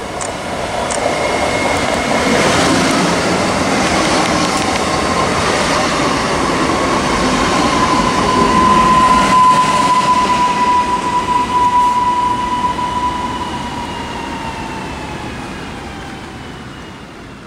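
Electric multiple unit passing close by and running away along the track: rumble of wheels on rail with a steady electric whine from the traction drive. The whine is loudest as the train goes past, then sinks a little in pitch and fades as it draws away.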